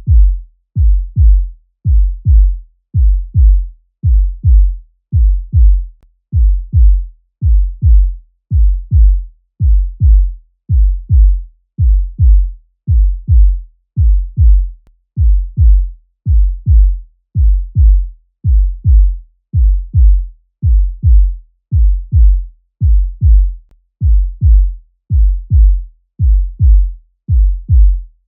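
Human heartbeat sound effect: low double thumps (lub-dub) repeating steadily at about one beat a second.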